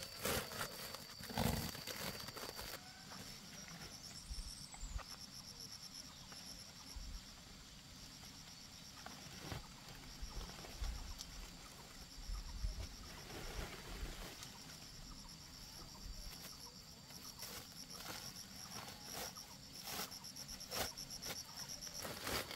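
Pineapples and their spiky leaves rustling and knocking as they are handled and dropped into a woven sack, loudest in the first two seconds. Behind it, insects chirp in a steady, high, rapidly pulsing chorus.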